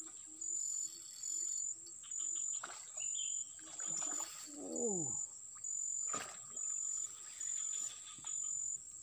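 Insects chirping in a steady rhythm, a short pulse a little more than once a second. A brief falling call sounds about five seconds in, and a sharp click about six seconds in.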